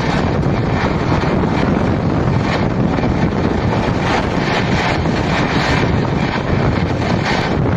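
Steady rush of wind on the microphone over the rumble of an Indian express train's coach wheels on the rails, heard from the open side of a coach running through a station at full speed.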